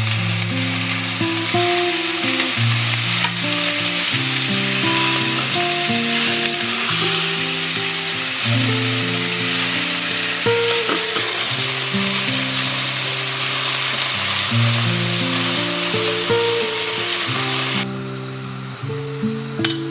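Food sizzling as it fries in a pan, a steady hiss with soft melodic background music underneath. The sizzling cuts off abruptly near the end, leaving only the music.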